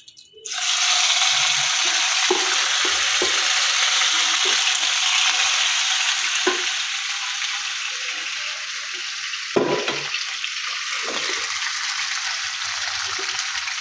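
Marinated beef pieces hitting hot oil in a non-stick wok and frying. The sizzle starts suddenly about half a second in and then runs steadily, with a few knocks of a metal spoon against the pressure cooker as the meat is scraped out, the sharpest nearly ten seconds in.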